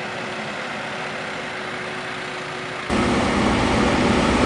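Heavy truck engine running steadily; about three seconds in the sound cuts abruptly to a louder, deeper engine sound.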